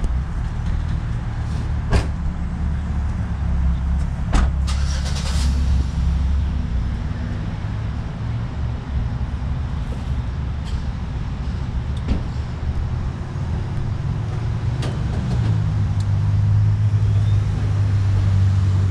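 A steady low engine rumble with a few sharp clicks. From about three-quarters of the way through, a gas-station fuel dispenser starts pumping fuel into the tank for a second top-off to the nozzle's automatic shutoff, adding a louder steady hum.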